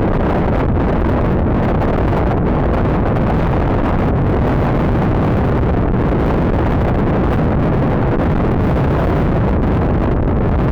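Typhoon-strength wind buffeting the microphone: a loud, steady rush that is heaviest in the low end.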